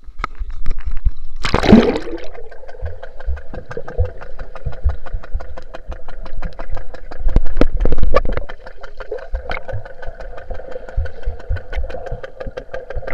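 Splash as the camera plunges into a swimming pool about one and a half seconds in. Then, heard underwater through the camera's waterproof case, a steady mechanical hum with rapid ticking from the pool's circulation pump and automatic suction pool cleaner, and scattered low thumps.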